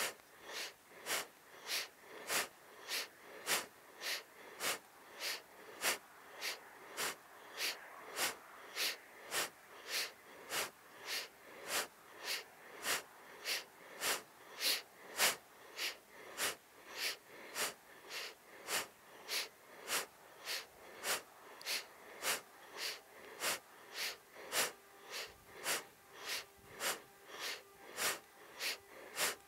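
A woman's strong, quick breathing in a fast, even rhythm: she inhales on each twist to the left and exhales on each twist to the right, in a seated Kundalini spinal twist.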